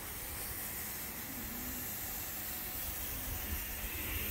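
Strong wind buffeting the microphone, a low uneven rumble over a steady hiss.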